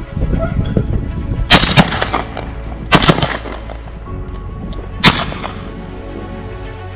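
Four gunshots: two in quick succession about a second and a half in, one at about three seconds and one at about five, each with a short echo, over background music.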